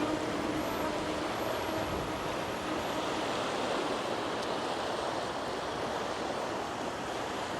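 Steady rush of wind and surf. The faint hum of the RC plane's twin motors fades out about three seconds in.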